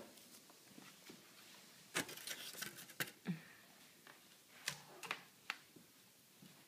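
Faint rustling and crinkling of a sheet of white packing paper as a toddler grips and shakes it, with scattered light clicks and knocks. The crinkling is densest about two to three seconds in.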